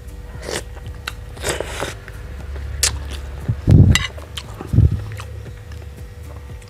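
Close-miked eating of spicy instant soup noodles: a forkful of noodles slurped in, then wet chewing and mouth sounds, with two louder low thumps around the middle.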